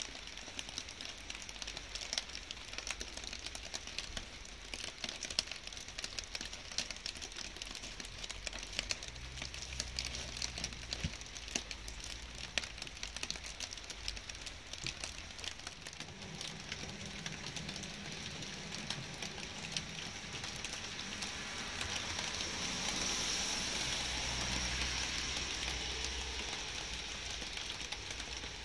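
Light rain: many small drops pattering and ticking close by over a steady hiss. A low rumble comes in about a third of the way in, and a broad, swelling hiss, the loudest part, rises about three-quarters of the way in and fades near the end.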